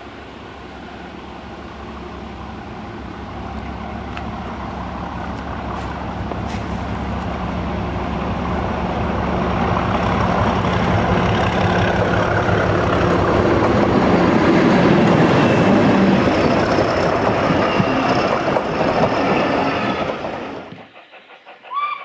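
Class 37 diesel locomotive, with its English Electric V12 engine running under power, approaching with a train of coaches. It grows steadily louder for about fifteen seconds and then cuts off abruptly near the end.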